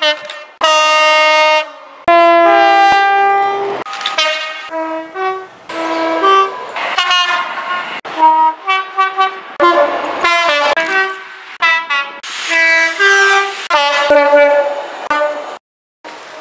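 British freight diesel locomotive horns sounding one after another: a run of loud two-note blasts, some long, most short, cut together from clip to clip.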